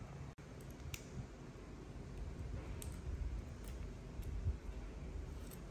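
A few faint, soft clicks from small objects being handled, a cotton swab and a medicine bottle worked by hand, over quiet room tone.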